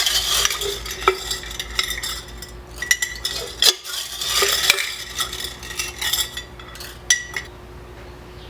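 Small pieces of steel clinking, rattling and scraping against each other and a steel canister as they are packed in, with short metallic rings; the clatter dies down near the end.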